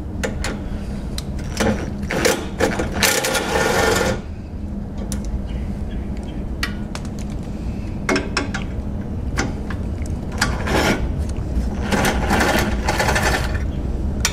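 Cordless impact tool hammering on a lower radiator support bolt through a socket extension, running in several short bursts with pauses between, the bolt being loosened for removal.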